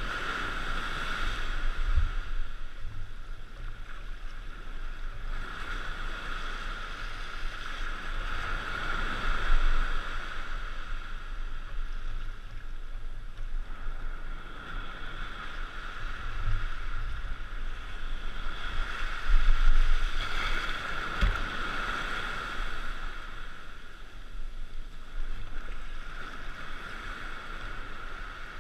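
Ocean surf breaking and washing in, rising and falling in long swells every several seconds, with wind rumbling on the microphone.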